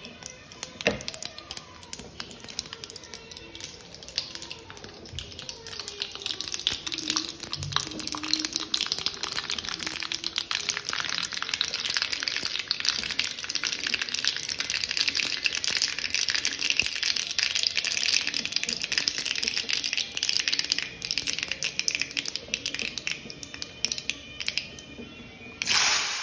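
Seeds crackling and popping in hot oil in a kadai: a dense patter of small pops that builds over the first ten seconds and keeps on. Near the end, chopped tomatoes and onions hit the oil with a sudden loud sizzle.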